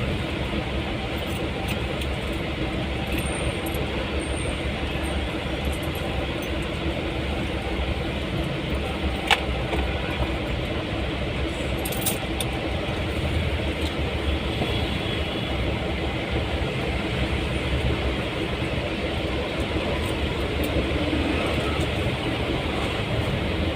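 A motor vehicle on the road, a steady low rumble with no break, and a single sharp click about nine seconds in.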